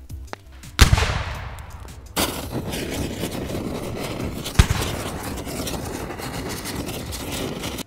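Explosion sound effect: a loud bang about a second in that dies away, then a steady crackling fire sound with another sharp bang about halfway through, as the toy police van burns.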